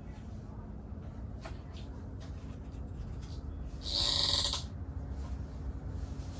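A rubber fuel hose being worked back onto its fitting: faint handling clicks, then one short high-pitched squeak about four seconds in, over a low steady rumble.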